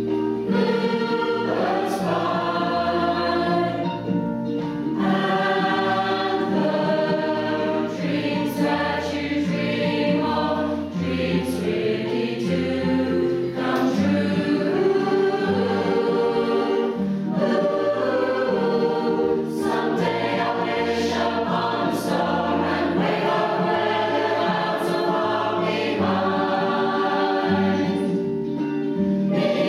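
Community choir singing a song in parts over a backing track with a bass line that steps from note to note.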